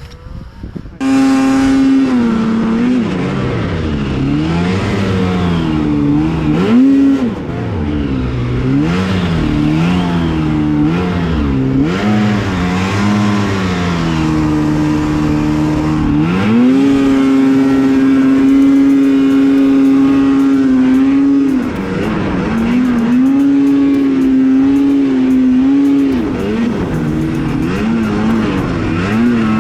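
Snowmobile engine coming in suddenly about a second in, then revving up and down as the sled is ridden through deep snow, held at a steady pitch for several seconds past the middle before varying again.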